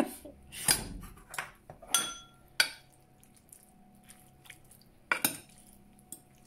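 Metal spoon clinking and scraping against a glass baking dish while mixing pasta into a tomato sauce. There are several separate clinks in the first few seconds, one of them ringing on briefly about two seconds in, then a quieter spell and another clatter about five seconds in.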